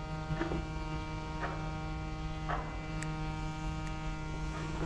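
Steady, even hum made of several constant tones, with a few faint short handling noises about a second apart as a hook is worked out of a fish's mouth.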